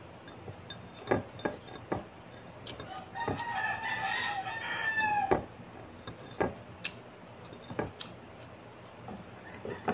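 A rooster crowing: one long call, starting about three seconds in and dropping in pitch at its end, with another crow beginning near the end. Sharp clicks and knocks from the plates and bowl on the table are scattered around it.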